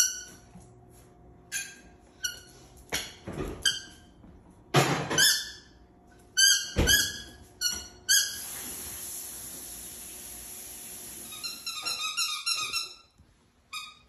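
Umbrella cockatoo making a string of short, high, squeaky chirps, with a few louder rough calls in between. A steady hiss lasts about three seconds in the second half.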